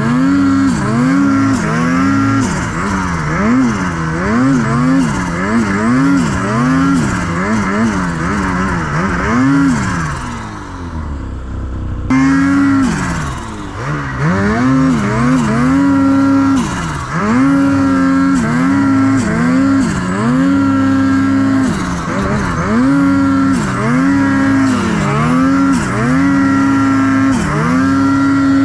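Ski-Doo Gen 5 Turbo R snowmobile's turbocharged two-stroke engine revving up and down again and again as the sled is ridden through deep powder. The engine eases off briefly about ten seconds in, then there is a sharp break and the revving picks up again.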